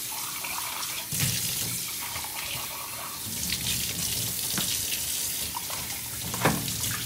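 Kitchen faucet running steadily into a stainless steel sink, the stream splashing over the clear carafe of an electric moka pot as it is rinsed. A few light clicks come as the parts are handled, and there is a louder knock near the end.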